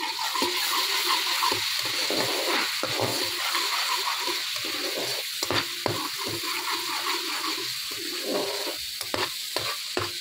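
Garlic paste sizzling in hot oil in a kadai, stirred with a metal slotted spatula that scrapes and taps against the pan throughout. It is the first stage of the samosa filling, the garlic frying lightly until fragrant.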